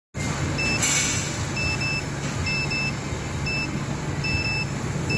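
Short electronic beeps from the heat press's digital temperature controller as its keys are pressed, coming singly and in quick pairs at uneven intervals, one held a little longer near the end. Under them runs a steady low machine hum.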